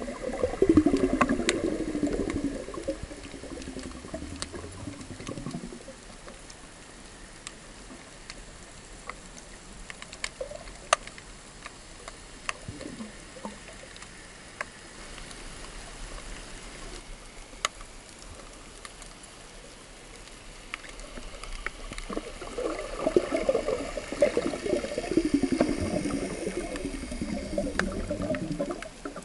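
Underwater sound through a camera's waterproof housing: gurgling, bubbly water noise with wavering falling sweeps, loudest in the first few seconds and again over the last several seconds. Scattered sharp clicks come through in the quieter stretch between.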